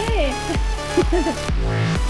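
Background electronic music with a steady beat, about two beats a second, and a gliding melodic synth line; the beat drops out briefly near the end.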